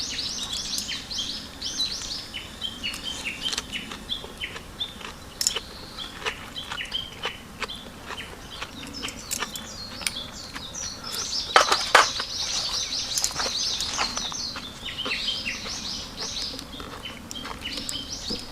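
Small birds chirping in quick runs of short, high notes, with scattered light clicks and two sharper clicks a little past the middle.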